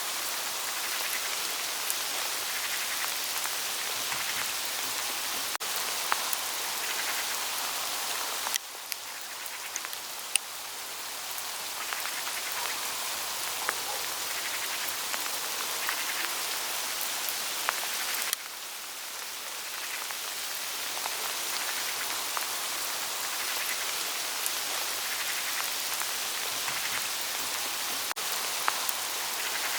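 Hail falling on autumn leaves in a forest: a dense steady hiss of many small hits with scattered sharper ticks. It drops suddenly in level about 8 seconds in and again about 18 seconds in, then builds back up over a few seconds.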